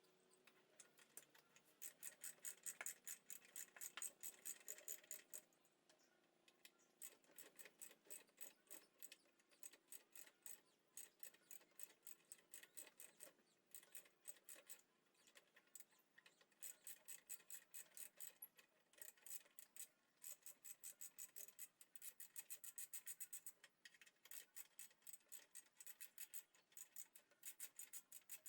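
Hand-worked abrasive strokes rubbing back and forth on a part, several quick even strokes a second, in runs of a few seconds with short pauses between.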